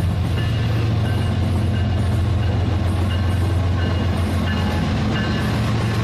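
Rail King toy train running, its small electric motor giving a steady low hum, with short high tones repeating over it.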